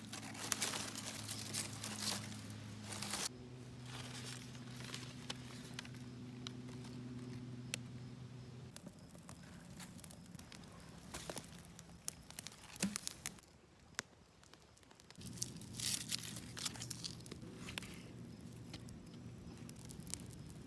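Crumpling, tearing and rustling of fire-starting material as a campfire is built and lit, coming in irregular bursts with sharp clicks and pauses between them.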